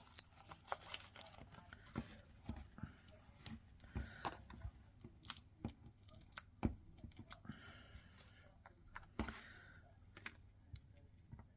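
Hands working with cardstock and foam adhesive dimensionals: scattered light taps and clicks on the desk, with a few brief paper rustles.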